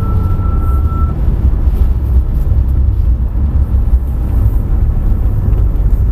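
Car engine and road noise heard inside a track car's caged cabin while it laps a wet circuit: a loud, steady low rumble. A thin, steady high whistle sounds for about the first second.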